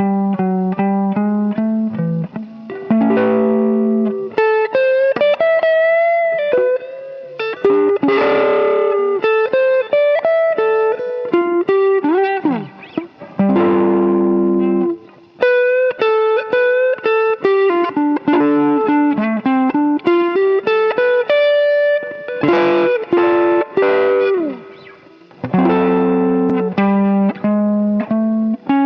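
Electric guitar playing blues lead licks: runs of single notes with string bends, broken by a few strummed chords about every five seconds.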